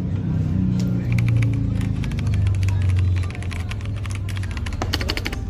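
Typing on a CPSTECH K86 hot-swap mechanical keyboard: a quick, uneven run of key clicks that starts about a second in, over a steady low hum.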